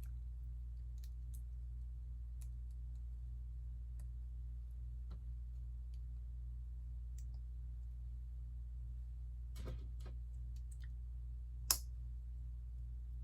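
Plastic Lego pieces clicking as they are handled and pressed together, sparse small clicks with a sharper snap near the end, over a steady low hum.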